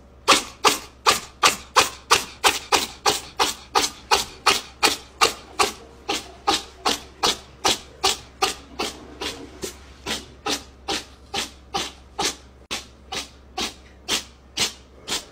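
A cat licking right at the microphone: a steady run of rasping tongue strokes, nearly three a second.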